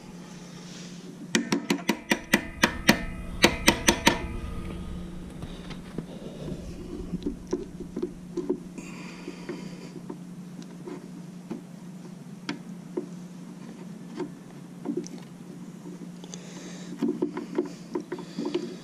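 Clicks and knocks from a motorcycle footpeg being worked back into line on its mount, with its spring and pivot pin. A fast run of sharp clicks comes about one to four seconds in, about four a second, then scattered lighter taps follow. A steady low hum runs underneath.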